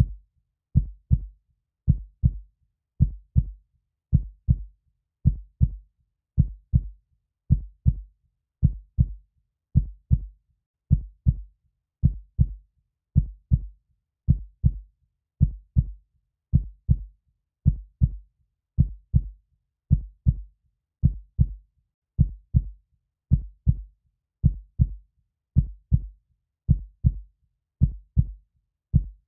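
Heartbeat sound in a steady rhythm, each beat a low double thump (lub-dub), a little faster than one beat a second, with silence between beats.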